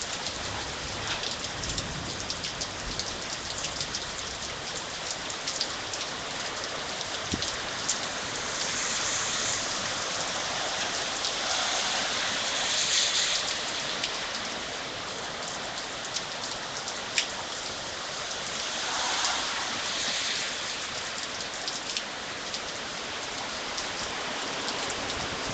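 Steady rain falling, with scattered sharp ticks of drops hitting close by. Wind gusts swell the sound three times, around a third of the way in, near the middle and about three quarters of the way through.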